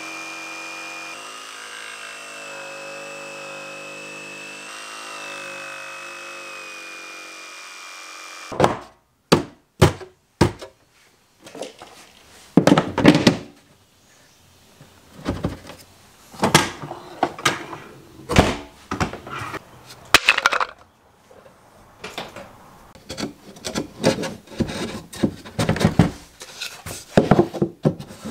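A jigsaw runs steadily with a high whine while cutting plywood, then stops abruptly about eight seconds in. After that come irregular knocks and thuds of plywood pieces being set and tapped into place in a plastic tool chest.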